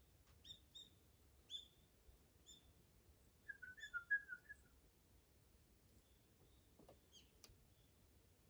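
Faint bird chirps in a quiet setting: a few short calls in the first two seconds, then a quick run of chirps about halfway through, with a few faint clicks.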